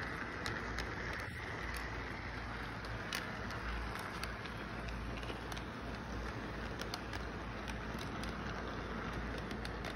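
Model train running past on its track: a steady rolling noise with scattered light clicks from the wheels, over a constant low hum of background noise.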